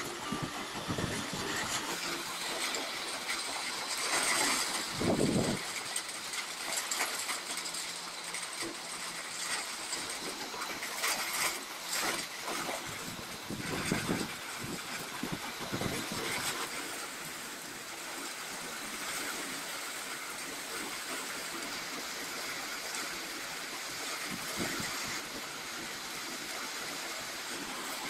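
Heavy rain falling on trees and foliage: a steady, even hiss that swells briefly louder a few times.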